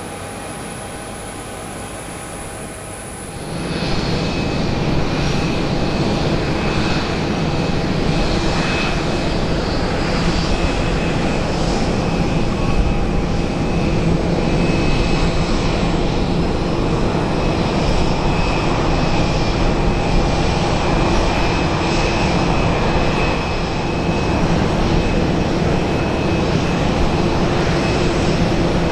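Jet airliner engines running, coming in loudly about three and a half seconds in and then holding steady, with a steady whine over the rumble.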